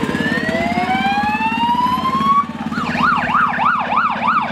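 Fire truck siren: a slow rising wail for about two and a half seconds, then switching to a fast yelp of about three rises and falls a second. The truck's engine runs underneath with a steady low pulsing.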